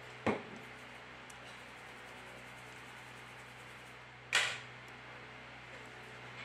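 Two sharp clicks of small tools and plastic and metal parts on an Alcatel Idol 3 smartphone being reassembled: one just after the start, a louder, brighter one about four seconds in. A faint steady hum lies under both.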